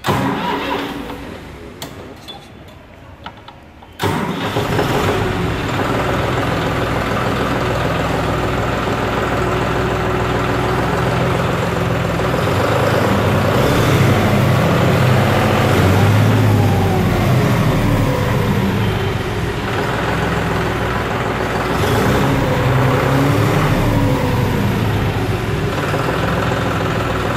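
John Deere 5210 GearPro's 50 hp three-cylinder turbo diesel starting about four seconds in, then running steadily. It is revved up and eased back twice.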